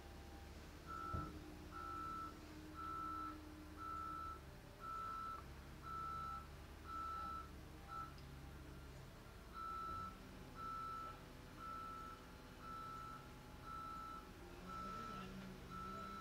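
Front loader's reversing alarm beeping about once a second, with a short break partway through, over the low hum of diesel loader engines working. One sharp knock about a second in.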